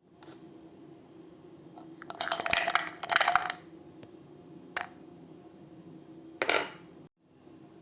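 Clattering and clinking of small hard objects: two bursts of rapid clinks about two seconds in, then a single click and a short rattle near the end.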